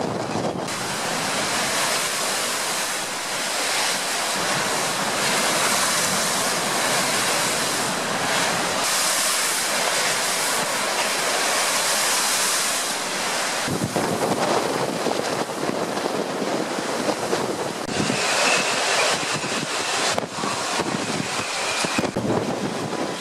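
Storm-force wind blowing over a lake, with storm waves breaking and crashing against the shore and wind buffeting the microphone. It is a loud, steady rush that shifts abruptly a few times.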